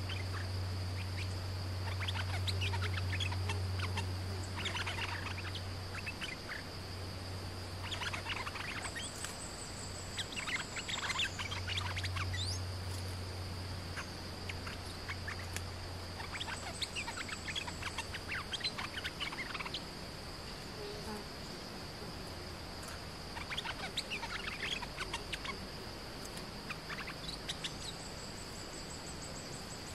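Stripe-throated bulbuls calling in repeated bursts of quick chattering notes, over a steady high insect drone.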